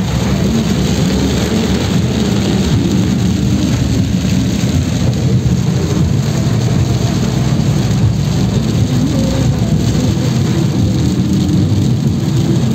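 Heavy rain beating steadily on a car's windshield and roof, heard from inside the moving car over a low, steady rumble of engine and tyres on the wet road.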